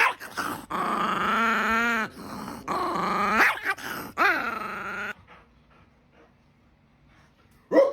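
Dog answering with a run of growly, whining vocal sounds that waver in pitch, for about five seconds before it falls quiet. A short sharp sound comes near the end.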